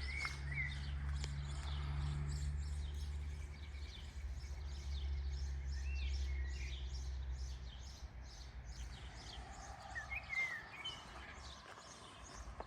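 Footsteps at a walking pace, with a few short bird chirps and a low steady rumble that fades away about two-thirds of the way through.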